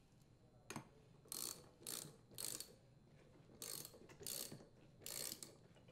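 Hand ratchet tightening the flywheel mounting nut on a leaf blower crankshaft: a single click about a second in, then six short runs of pawl clicking as the handle swings back, in two groups of three.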